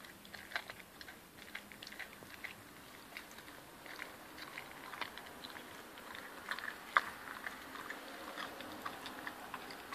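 An Appenzeller-cross dog chewing raw lamb meat and a young goat's shank bone, with irregular wet bites and clicking crunches of teeth working through meat and soft bone. One sharp snap about seven seconds in stands out as the loudest.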